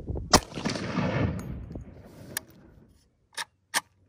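A single shot from a Zastava M91 rifle in 7.62x54R: one loud sharp crack with echo rolling off for about a second and a half. Three shorter, quieter sharp cracks follow in the second half.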